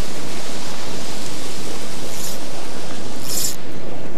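Steady, loud wind rush on the microphone, broken by three brief swishes of fly line being stripped and cast, about two, three and a quarter, and four seconds in.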